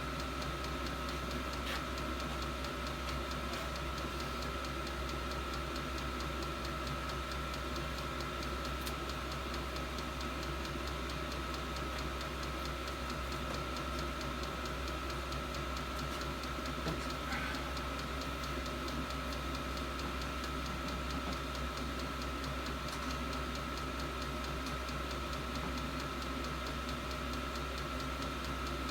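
8 kW 12 V all-in-one diesel heater running steadily: a constant hum with a steady high whine, and light regular ticking.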